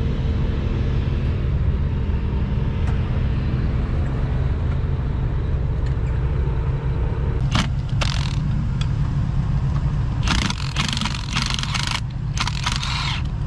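Engine idling steadily with a low rumble, broken in the second half by several short bursts of harsh, hissing noise.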